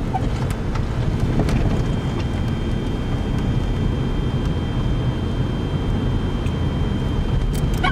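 Steady low rumble inside a car creeping through deep snow in a blizzard: engine and tyres on the snow-covered road, with wind against the car. A faint thin high whine runs through it.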